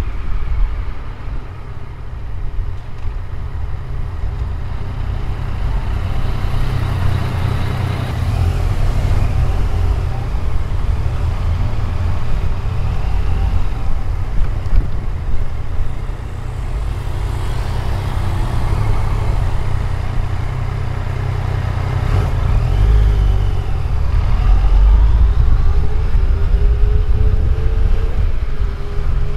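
Yamaha XSR900's inline three-cylinder engine running under way, heard from on the bike as a steady low rumble with road and wind noise. In the last few seconds the engine pitch rises as the bike accelerates.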